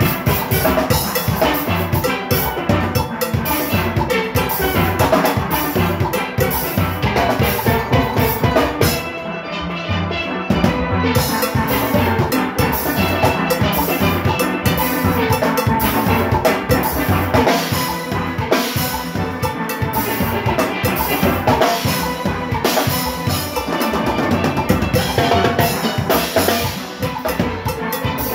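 Steel orchestra playing live: steelpans carrying the melody over an engine room of drum kit, timbales and congas keeping a driving beat. About nine seconds in, the high percussion drops out for a couple of seconds while the drums carry on.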